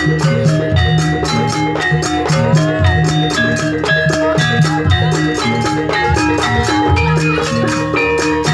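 Javanese gamelan-style ensemble music: struck metallophones play a busy, repeating melody of short ringing notes over steady drumming.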